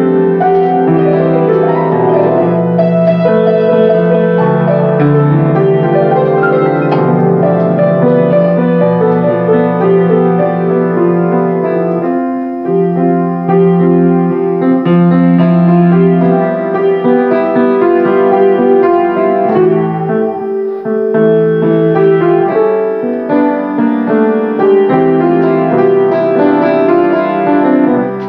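Grand piano played solo: an original piece of long held chords under a melody, with brief lulls between phrases about twelve and twenty seconds in.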